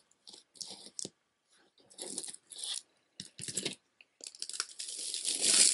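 Handling noise from a beaded necklace of sodalite chips and glass seed beads being picked up and moved, the beads and stone chips clicking and rattling in short irregular bursts. From about four seconds in, a longer, louder rustling builds and peaks near the end.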